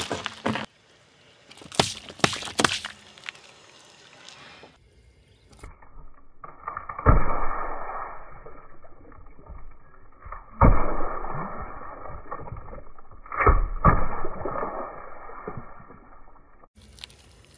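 A car tyre crushing candy-coated chocolates in a foil tray, with a few sharp cracks in the first three seconds. Then the tyre bursts small drink cartons three times, about three seconds apart; each burst is a sudden pop followed by liquid gushing and splattering onto the asphalt.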